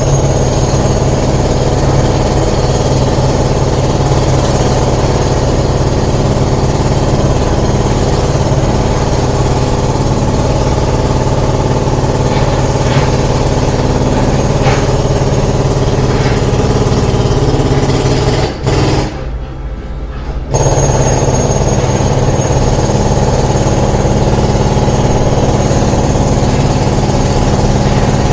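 Construction site ambience dominated by a heavy machine's engine running steadily. About two-thirds of the way through, the sound briefly goes dull and quieter for about two seconds, then returns.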